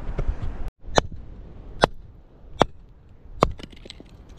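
Four sharp chopping strikes, evenly spaced a little under a second apart. Steady wind noise cuts off suddenly just before them.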